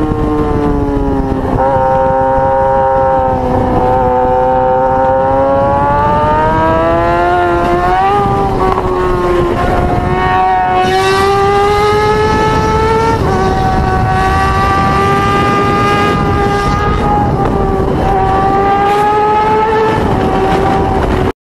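Sport motorcycle engine at high revs under hard acceleration, the pitch climbing and then dropping at each gear change, several times over, with wind rushing past. The sound cuts off suddenly at the end.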